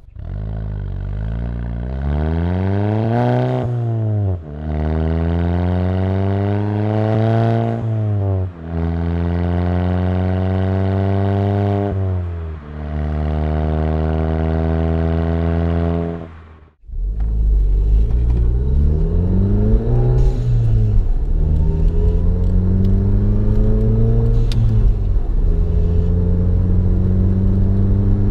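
VW GTI Mk7's turbocharged four-cylinder engine, with an APR downpipe and the Soundaktor unplugged, accelerating through the gears. The engine note climbs and drops back with each upshift. About 17 seconds in the sound switches abruptly to a rougher, rumblier version of the same engine, which keeps climbing and shifting.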